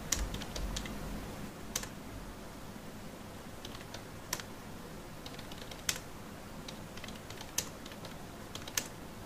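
Computer keyboard being typed on slowly: single keystrokes, each a sharp click, at an irregular pace a second or more apart, with a few closer together near the start.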